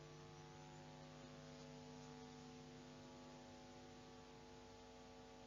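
Near silence with a faint, steady electrical hum made of several unchanging tones.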